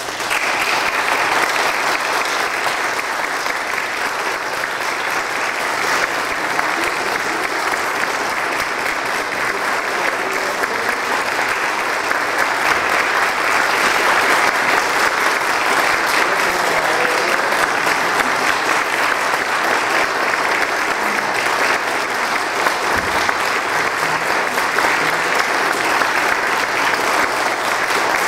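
Audience applauding: the clapping breaks out suddenly from quiet and then holds steady.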